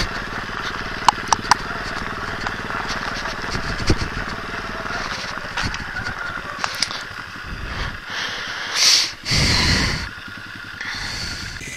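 Nitro Sky 125cc pitbike's single-cylinder four-stroke engine running steadily while riding. About nine and ten seconds in there are two loud rushing noise bursts.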